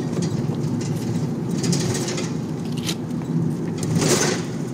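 A steady low mechanical rumble, like a running engine or motor. Brief paper rustling comes about four seconds in as a packing slip is lifted out of a cardboard box.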